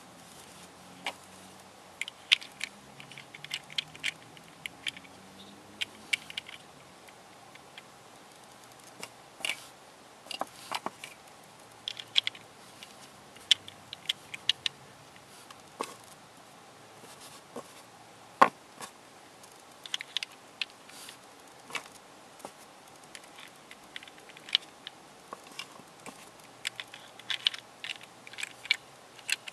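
Hard plastic pieces of a Square 2 twisty puzzle clicking and tapping as they are picked up and slid onto the puzzle by hand. The clicks come irregularly, singly and in short quick clusters.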